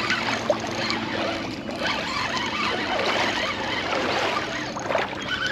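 Continuous rustling and scuffing of someone moving through bankside brush and vegetation on foot, with scattered small clicks.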